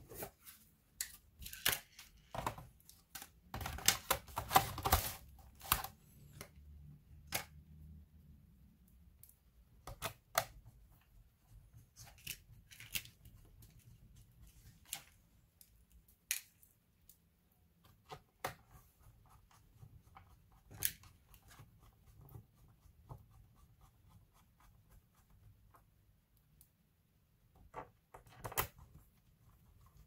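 Scattered clicks, taps and scrapes from hands handling a laptop's plastic case on a table, with a busier stretch of knocking and scraping about four seconds in.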